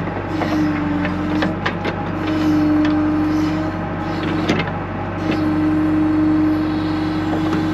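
John Deere 310 backhoe's diesel engine running under load while digging, with a whine that rises in and drops out about three times as the hydraulics are worked. A few sharp knocks from the bucket striking debris in the dirt.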